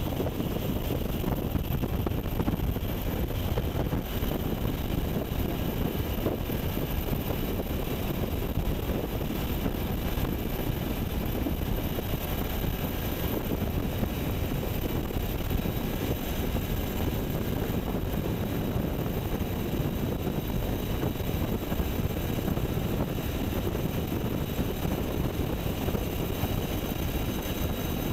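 UH-60 Black Hawk helicopter heard from aboard in flight: the steady, dense rumble of its rotor and twin turbine engines, with faint steady high-pitched whines over it.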